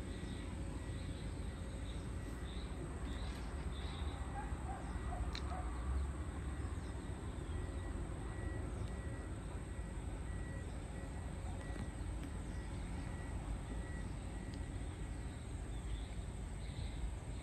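Outdoor ambience: a steady low rumble throughout, with short high bird chirps in the first few seconds and again near the end.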